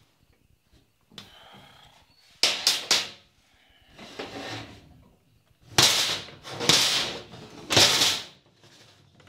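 Metal knocks and scrapes as a Warn winch bolted into its steel receiver mounting bracket is handled and turned over on a metal workbench. There is a quick run of three clinks about two and a half seconds in, then three heavier knocks and scrapes about a second apart near the end.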